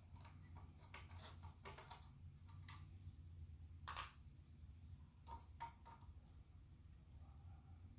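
Faint scattered clicks and light taps of a screwdriver and ceiling-fan blade hardware as the screws holding a fan blade are worked loose, with one sharper click about four seconds in and a few more a second or so later, over a low steady hum.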